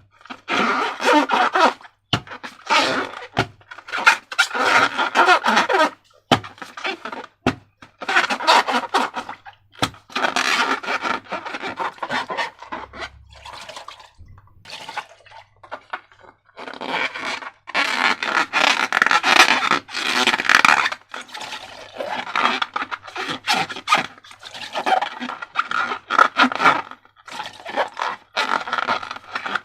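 Slime being worked by hand: irregular bursts of squishing, scraping noise with short pauses and a quieter stretch about halfway through.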